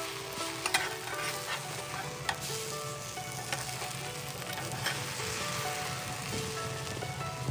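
Pork-stuffed baguette slices sizzling in hot oil in a nonstick frying pan, with scattered clicks and scrapes of a metal spatula and tongs as the pieces are turned.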